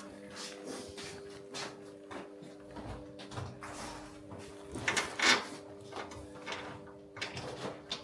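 Clicks, clinks and knocks of metal parts and fasteners being handled and fitted to a generator frame during assembly, with a louder rattle about five seconds in. A steady low hum runs underneath.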